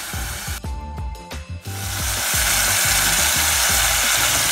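Spinach and tomato purée sizzling as they fry in a pot, the sizzle dropping out briefly about a second in and coming back louder from about two seconds in.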